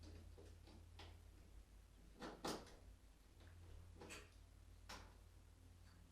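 Faint, scattered clicks and light knocks over a low steady hum; the loudest knock comes about two and a half seconds in.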